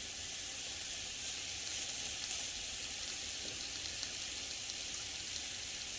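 Food sizzling steadily in hot oil in a pan, a constant hiss with a few faint crackles.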